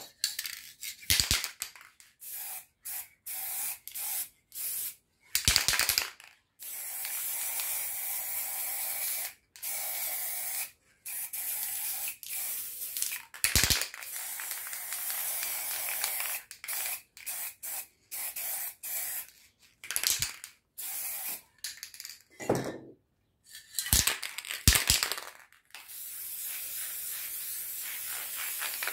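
Aerosol spray paint cans hissing, in short bursts at first and then in longer passes of a few seconds each, with a few sharp knocks between the sprays.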